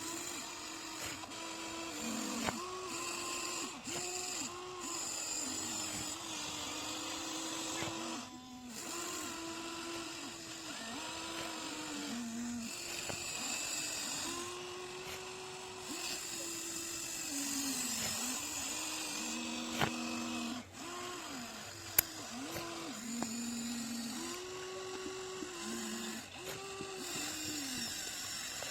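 Huina 1593 RC excavator's small electric motors whining through their gearboxes. The pitch starts, stops and glides up and down as the boom, arm, bucket and swing motors come on and off while it digs soil. There are two sharp clicks in the last third.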